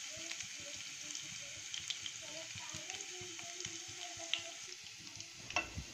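Grated unpeeled garlic sizzling in hot oil in a nonstick kadai: a steady low sizzle with light crackles as the tadka is started.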